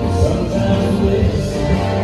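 A line dance song with a singing voice and a steady bass line, played loud over PA speakers.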